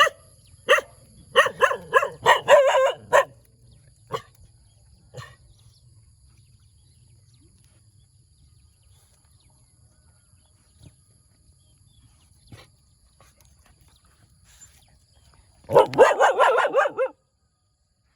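A puppy barking: a quick run of barks from about a second in for two seconds, then two single barks, a long lull, and a rapid flurry of barks near the end that cuts off suddenly.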